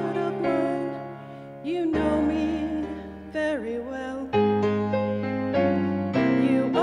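A woman singing into a handheld microphone with vibrato, over a sustained piano accompaniment whose chords change every second or two.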